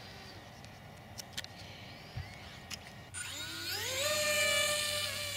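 A small twin-motor RC plane's electric motors and propellers spinning up about three seconds in, a whine that rises in pitch and then holds steady at full throttle, as the plane is readied for a hand launch. Before that, a low hiss with a few faint clicks.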